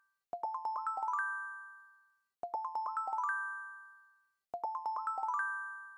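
Channel intro jingle: a quick rising run of bell-like chime notes that rings out and fades, played three times about two seconds apart.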